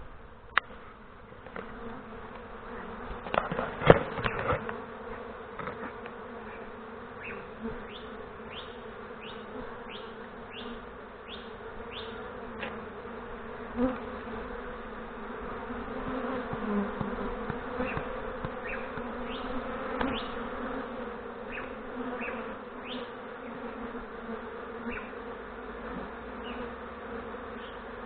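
Swarm of disturbed honey bees buzzing in a steady drone around a freshly filled mini nuc hive box, with single bees now and then sweeping close past in quick rising or falling buzzes. A few sharp knocks come about four seconds in.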